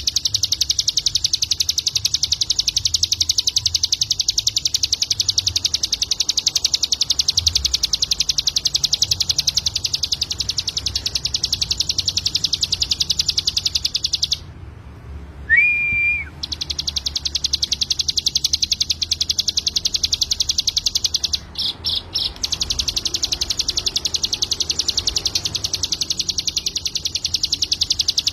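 Ciblek gunung (a mountain prinia) singing a very fast, high, continuous trill. It breaks off about halfway through for a single whistled note that rises and then holds. After that the trill resumes, stutters briefly and carries on.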